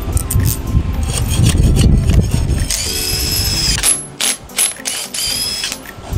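Makita 18V cordless impact driver spinning the setting adapters off freshly set anchor bolts in a concrete pad: rattling for the first few seconds, then high motor whine in short runs about three and five seconds in.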